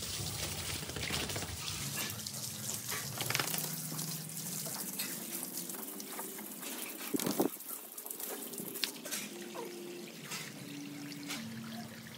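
Water from a garden hose splashing and trickling over a dog's wet coat and onto concrete as the dog is rinsed, with a short louder sound about seven seconds in.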